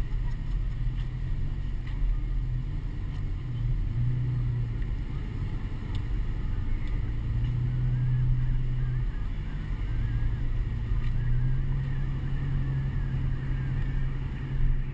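Truck driving slowly, its engine and tyres giving a steady low rumble, picked up from outside the cab.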